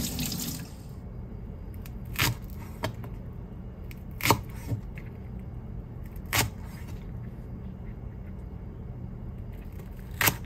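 Tap water running into a sink stops within the first second. Then a kitchen knife cuts through a leek onto a thick wooden chopping block, making about six separate sharp knocks at uneven intervals; the one around the middle is loudest.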